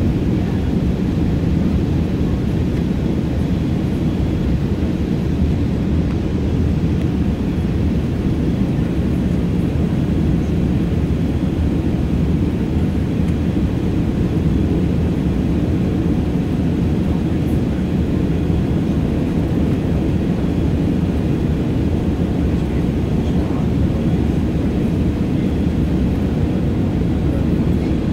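Steady, deep cabin noise of a Boeing 747-8 climbing after takeoff, heard inside the passenger cabin: its four GEnx engines at climb power and the airflow over the fuselage, with no change in level.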